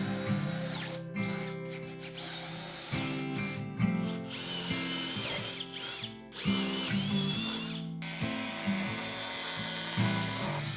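A power drill running in short runs, its motor whine rising as it spins up, over background music.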